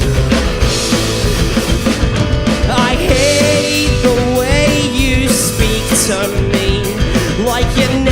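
Indie rock band playing live: a full mix of drums, bass and guitars. From about three seconds in, a lead melody line bends and wavers in pitch over the band.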